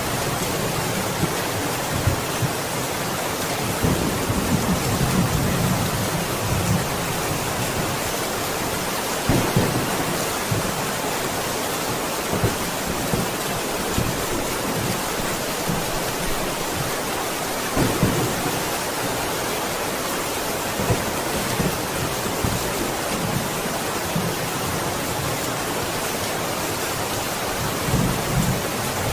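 Steady, heavy rain, with low rumbles of thunder swelling up now and then, several times.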